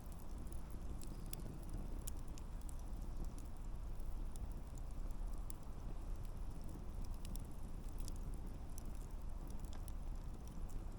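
Wood campfire burning: a steady low rumble of flame with frequent, irregular sharp crackles and pops from the burning logs.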